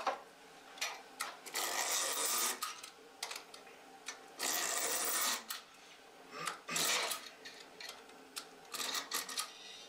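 Hand wire tensioner tightening the wires of a wooden beehive frame: two rasping scrapes of about a second each and a shorter one near the end, with small clicks and knocks as the frame and tool are handled.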